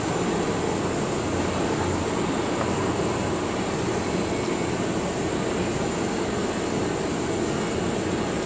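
Steady, unbroken mechanical drone with a faint high whine on top, holding the same level throughout.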